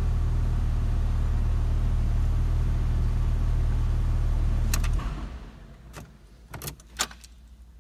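2008 Porsche 911 Turbo's twin-turbo flat-six idling steadily, then switched off about five seconds in. A few sharp clicks follow.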